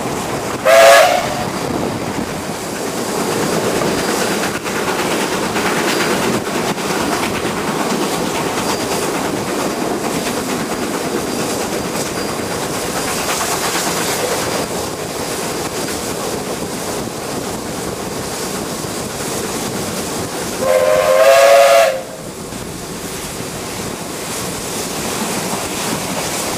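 Steam locomotive 29013's whistle blowing twice, a short blast about a second in and a longer one of about a second near the end, over the steady rush of wind and the train running at speed, heard from a carriage window.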